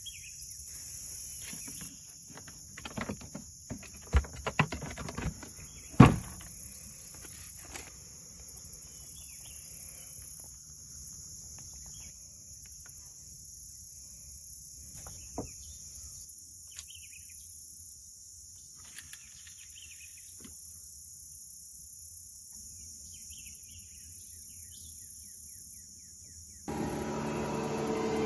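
Steady high-pitched insect chorus, with a few sharp knocks and clicks between about three and six seconds in, the loudest around six seconds. Near the end a passing motorboat's engine comes in and grows louder.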